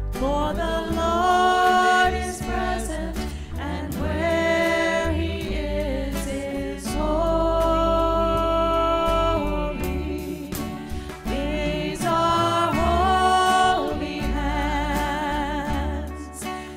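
Worship song sung slowly to instrumental accompaniment, the voices holding long notes and sliding between them over a steady low bass.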